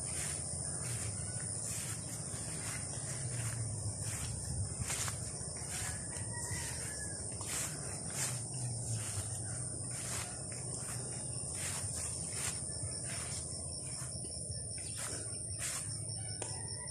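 Steady high-pitched drone of insects, with soft footsteps through grass coming about once or twice a second.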